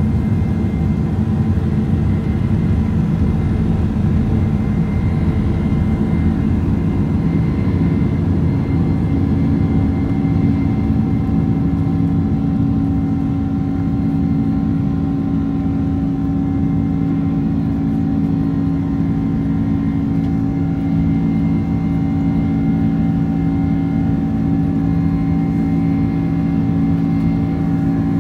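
Boeing 767-400ER's turbofan engines at takeoff thrust, heard from inside the cabin: a loud, steady roar with rumble from the runway during the takeoff roll. A little before halfway the rumble fades as the jet lifts off, leaving a steadier engine drone with a clear hum through the climb.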